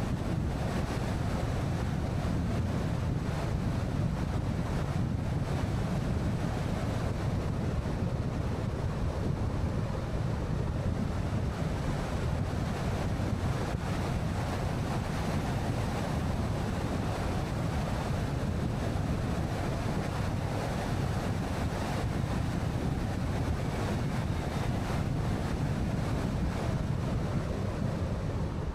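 Steady road and wind noise of a car driving at speed: an even low rumble without breaks or distinct events.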